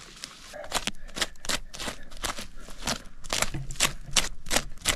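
A hand digging and scraping into damp soil, a run of short, sharp scrapes about three a second, starting about a second in.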